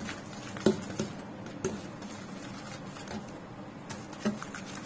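Metal spoon stirring butter and powdered sugar in a stainless steel bowl: a soft scraping with a few scattered light clinks of spoon against the bowl.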